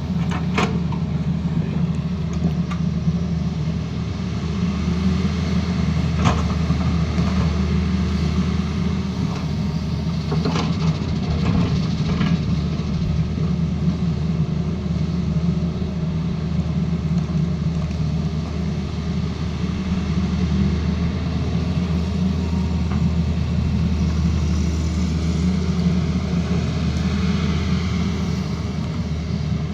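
A Tata Hitachi Zaxis excavator's diesel engine running steadily under load, with a few sharp knocks in the first half.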